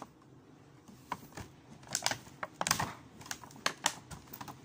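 Clear plastic packaging crackling and clicking as it is handled, in irregular sharp clicks that bunch together about halfway through.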